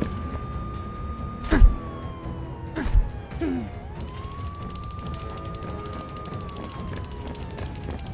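Emergency siren wailing in a slow rise-and-fall, rising quickly, holding and then sliding down before rising again about every four seconds, over a fast, even ticking. Two loud thuds with a dropping pitch land about a second and a half in and again about three seconds in.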